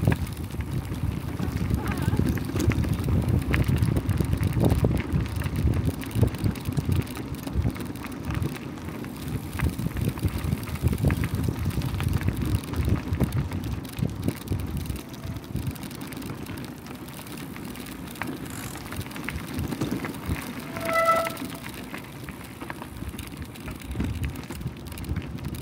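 Bicycles riding on a gravel path: a steady low rumble of wind and tyres, with many small ticks and rattles from the gravel and bike. About twenty seconds in there is one short pitched tone.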